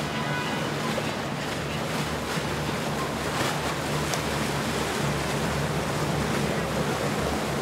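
Quad Mercury Racing 400 outboard motors on a Streamline 45 center-console boat running steadily: a low drone over the rush and splash of water along the hull and wake.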